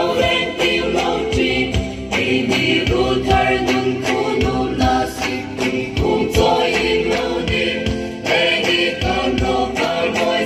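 A group of voices singing a chant-like traditional dance song in unison, over a steady drum beat.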